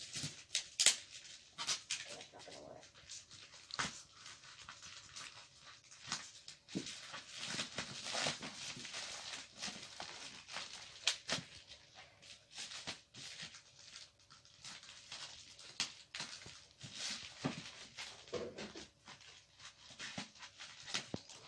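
Plastic courier mailer bag being handled and opened by hand, rustling and crinkling irregularly with sharp crackles and clicks as the packing tape is pulled and cut with scissors.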